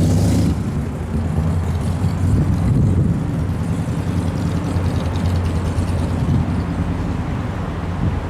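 2006 Harley-Davidson Dyna Street Bob's 96-cubic-inch V-twin running steadily, with its new ignition switch fitted.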